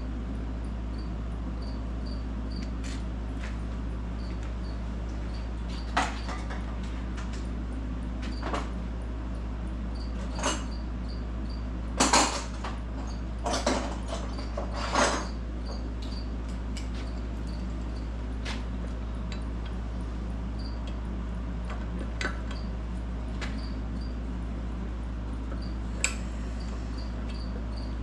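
Hand tools and parts being handled at a workbench and tool chest: several separate clinks and clunks scattered through, over a steady low hum.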